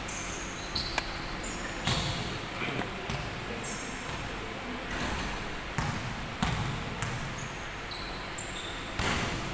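Basketball bouncing on an indoor court floor, a handful of thuds at irregular intervals, with short high squeaks of sneakers on the floor between them.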